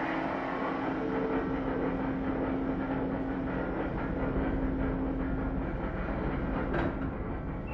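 Steady rumble and hum of a ferry's mooring-deck machinery around a mooring winch. A held drone fades out about three-quarters of the way through, and a single short clank comes near the end.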